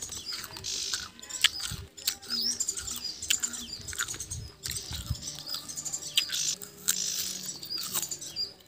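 Small birds chirping, many short overlapping calls one after another, with a few soft knocks in between.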